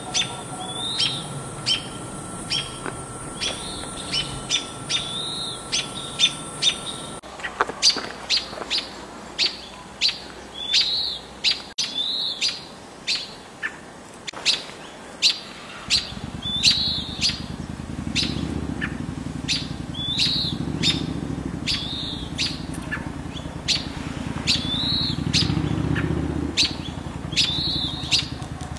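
Small birds giving a sharp chirping call over and over, about once a second: alarm calls of songbirds mobbing a perched red-tailed hawk near their nest. A low rumble comes in about halfway.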